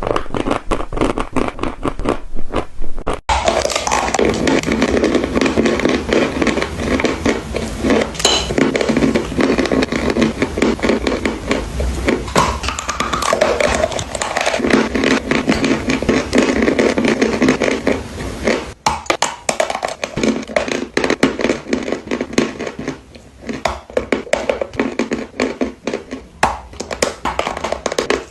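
Gym chalk being bitten and chewed close to the microphone: a dense, continuous dry crunching and crackling. The sound cuts abruptly to a new take about 3 seconds in and again about 19 seconds in.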